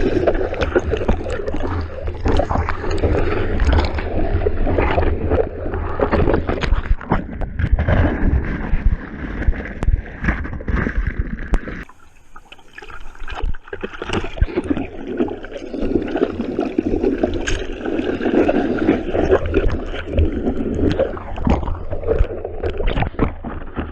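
Seawater splashing and sloshing around a GoPro action camera in the surf, with many sharp splashes. It turns briefly quieter about halfway through.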